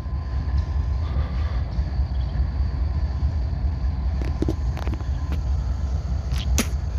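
Steady low rumble, with a few short clicks and knocks between about four and seven seconds in.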